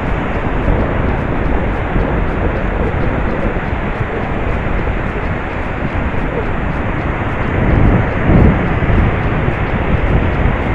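Steady rush of breaking surf and wind on the microphone, swelling briefly about eight seconds in.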